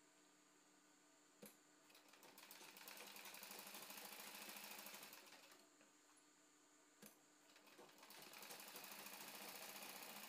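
Sewing machine stitching in two runs, with a click just before each: the first builds up, holds for a few seconds and slows to a stop, and the second starts a couple of seconds later and is still running at the end.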